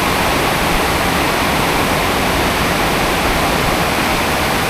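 Torrential tropical downpour during a thunderstorm, rain pouring down as a steady, loud rush.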